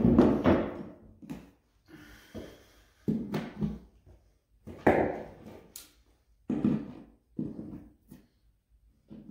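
A string of dull knocks and scrapes on a bare particleboard subfloor as staples left from the carpet are worked out with pliers, roughly one a second, the loudest right at the start.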